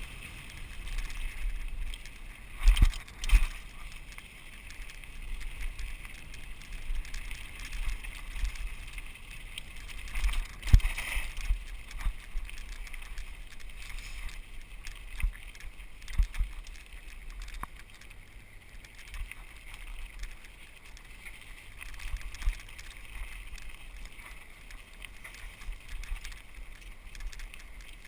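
Mountain bike rolling over a gravel road: steady tyre noise with rattles and sharp jolts from bumps, the loudest knocks about three seconds in and again about eleven seconds in.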